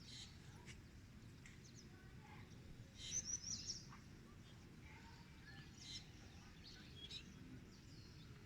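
Scattered faint bird chirps over low, steady background noise, with a quick run of several chirps about three seconds in, the loudest moment.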